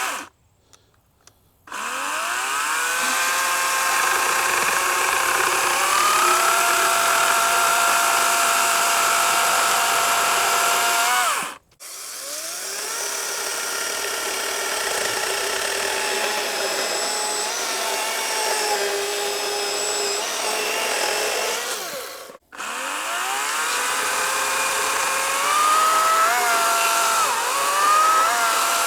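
Battery-powered 40-volt chainsaws cutting thin cookie slices from wood, run three times in turn. Each time the electric motor spins up with a rising whine, runs for about ten seconds with its pitch shifting as the chain cuts, then stops abruptly.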